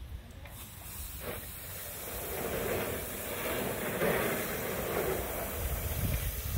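Garden hose spray nozzle hissing as a jet of water sprays out, starting about half a second in and growing louder.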